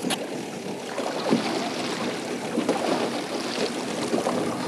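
Water lapping against a kayak hull on the open sea, with wind on the microphone.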